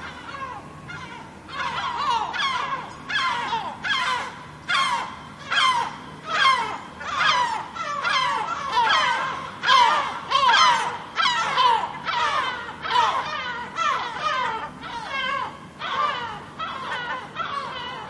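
Seagulls calling in a long run of loud cries, about one a second.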